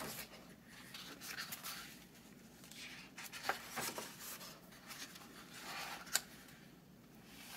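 Pages of a picture book being turned by hand: several soft paper rustles and swishes, with one sharp tap about six seconds in.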